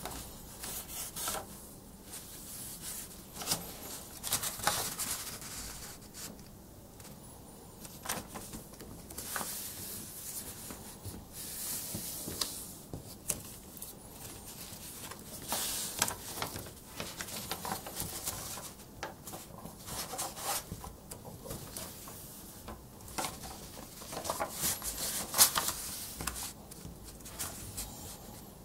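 A sheet of A4 paper being folded and creased by hand: irregular rustling swishes and rubbing as fingers run along the folds and smooth them flat, with short crisp crackles of the paper.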